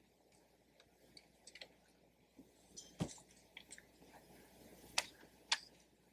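Handling noise on a handheld microphone: faint scattered clicks and rubbing, a dull thump about three seconds in and two sharp clicks near the end.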